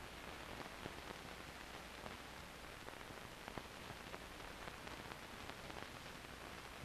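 Faint steady hiss of an old 16mm film soundtrack, with scattered small crackles and pops.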